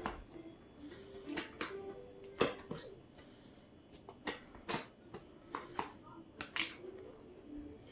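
Irregular clicks, taps and rustles of a shipping box's packaging and containers being handled.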